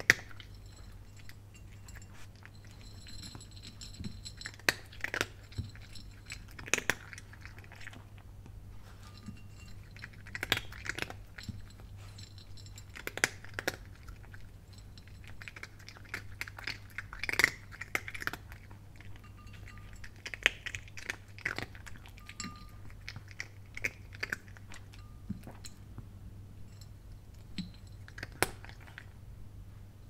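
A cat crunching dry kibble: clusters of crunchy chewing come every few seconds at an irregular pace, over a faint steady low hum.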